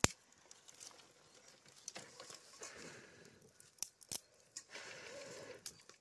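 Steel perforated skimmer clinking and scraping against a steel kadai as small fish are stirred in frying oil: a handful of scattered light clicks with soft noise between.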